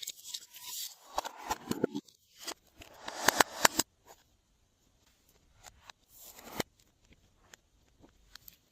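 Glossy slime being mixed and worked by hand, giving sticky clicks and crackles. The sound is busiest for the first four seconds, then comes in scattered clicks with a shorter burst about six seconds in.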